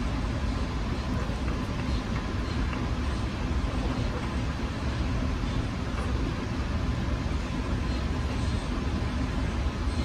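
Steady low background rumble with no distinct events.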